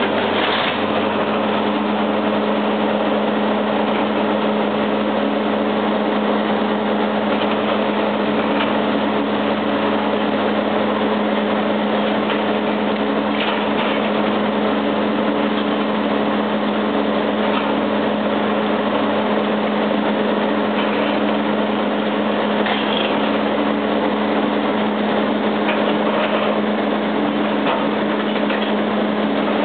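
Liebherr 944B long-reach demolition excavator's diesel engine running steadily under load, a constant drone with occasional faint knocks.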